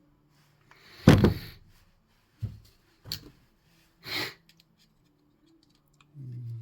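Engine parts handled on a workbench during piston and connecting-rod assembly. A heavy clunk comes about a second in, then a few lighter knocks and clicks and a short breathy rustle. A low hummed voice starts near the end.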